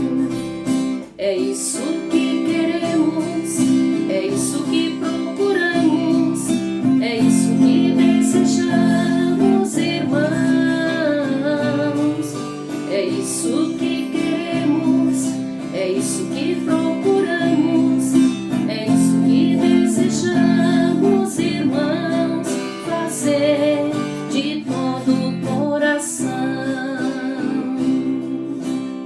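A strummed acoustic guitar accompanying a song, with a woman's voice singing a wavering melody at times over the steady strumming.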